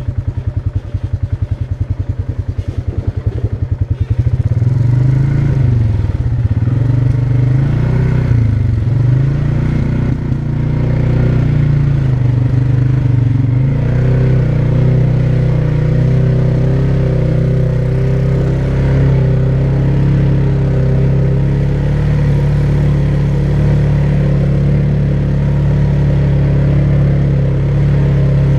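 ATV engine chugging at low revs with rapid, even pulses for the first four seconds, then running continuously. Its pitch rises and falls with the throttle for several seconds before settling into a steady drone.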